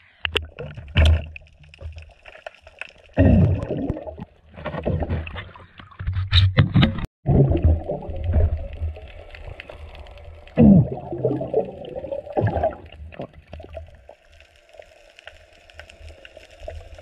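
Underwater gurgling and bubbling in irregular bursts, each about a second long, some with a downward-bending gurgle.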